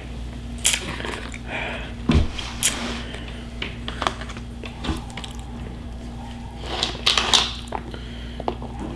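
Eating sounds: scattered short clicks and scrapes of a plastic fork against black plastic takeout containers, with food being handled and chewed. A steady low hum runs underneath.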